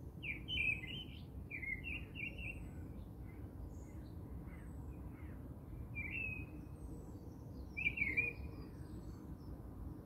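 Small birds chirping in short, quick twittering phrases, a few clusters spread through, the loudest about eight seconds in, over a steady low background hum.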